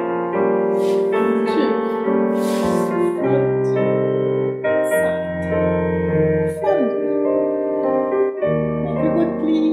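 Slow piano music with held chords, the accompaniment for a ballet barre exercise.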